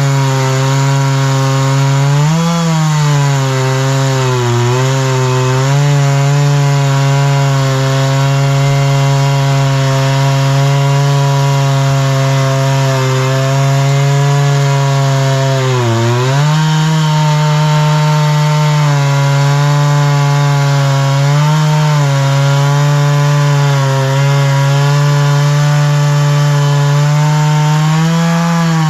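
Chainsaw mill ripping a tamarack log lengthwise with a freshly reprofiled chain: the saw's engine runs steadily at high revs, its pitch dipping briefly under load a few times, most deeply about 16 seconds in, then picking back up.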